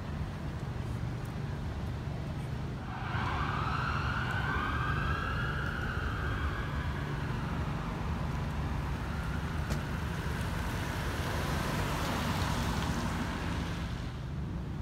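An emergency vehicle's siren wailing, starting about three seconds in, its pitch slowly rising and falling, over a steady low rumble.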